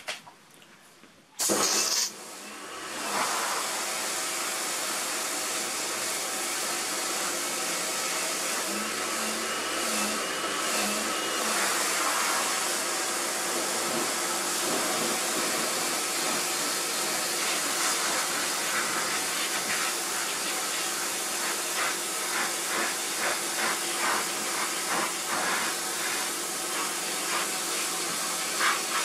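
Kärcher pressure washer firing up with a short loud burst about a second and a half in, then running steadily with the water jet hissing as it sprays a plastic sun lounger. In the last several seconds the spray noise rises and falls rapidly.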